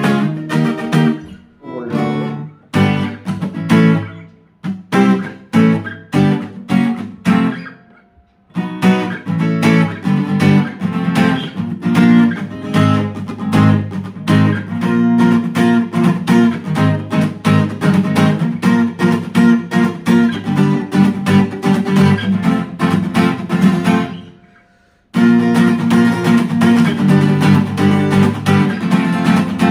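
Fender CD-60 V3 dreadnought acoustic guitar strummed, with no pickup or equaliser. First come separate strums, then steady rhythmic chord strumming, broken by two short pauses, one about eight seconds in and one near the end.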